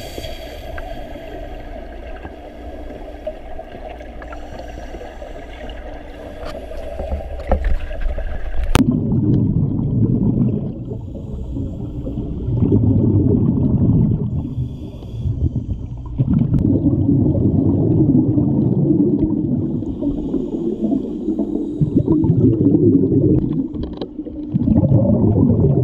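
Underwater sound in an aquarium tank: a steady hiss with a few fixed hum tones, then, after a sudden cut about nine seconds in, the low rumble and gurgle of scuba exhaust bubbles, coming in surges of a few seconds with short breaks between breaths.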